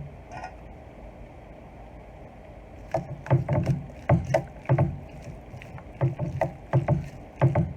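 Spoon stirring chicken salad with freshly added mayonnaise: rhythmic wet strokes with light scraping, about two a second, starting about three seconds in.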